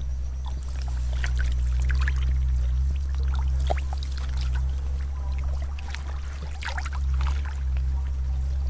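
Water splashing and trickling as fish are caught by hand, over a loud, steady low hum.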